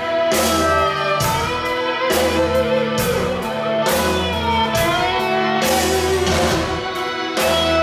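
Live rock band playing a slow, heavy instrumental passage: an electric guitar lead with bending notes over sustained bass notes and keyboards. Drum and cymbal hits land about once a second.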